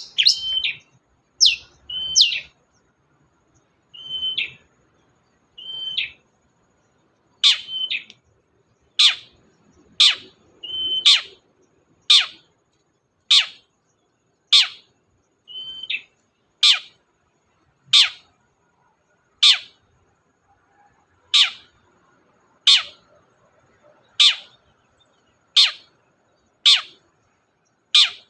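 Long-tailed shrike (cendet) singing. It opens with short notes, several holding a steady whistle, then settles into a long, regular series of sharp, steeply falling calls, one every one to one and a half seconds.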